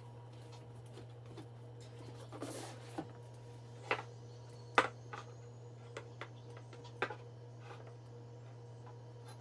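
Small glass and jar objects, among them a cut-glass dish, being set down one after another on a wooden tabletop: a series of light knocks and clinks, the loudest about five seconds in, with a brief sliding rub just before them. A steady low hum runs underneath.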